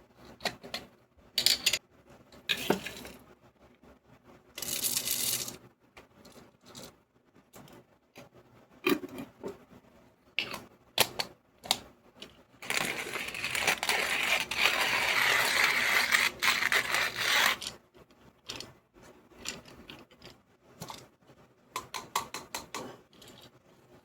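Clicks, taps and clinks of coffee-making equipment being handled for an espresso drink. About halfway through comes a steady rushing noise that lasts about five seconds.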